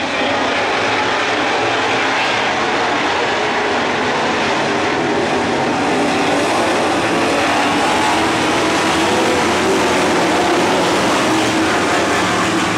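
A pack of dirt-track stock cars racing at speed, their engines blending into one loud, steady drone.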